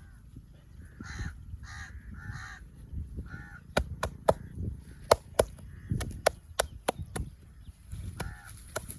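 Crows cawing, four short calls in the first three seconds or so. Then a quick run of about ten sharp slaps and claps from the hands of a head massage.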